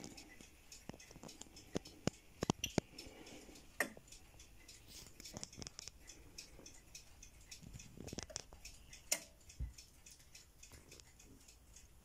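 Pioneer PL-570X full-automatic turntable's auto-start mechanism working: faint irregular mechanical clicks and ticks as the tonearm lifts and swings over the spinning record, a few sharper clicks, and a low thump as the stylus sets down in the lead-in groove.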